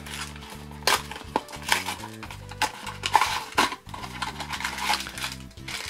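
Hands tearing open a small cardboard Funko Mystery Minis blind box: the flaps rip, scrape and rustle, with several sharp clicks and snaps about a second in and again around three seconds in, over soft background music.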